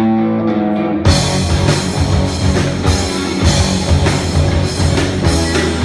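A rock band playing the opening of a song. A guitar holds a few notes, then about a second in the full band comes in with drums and loud guitar.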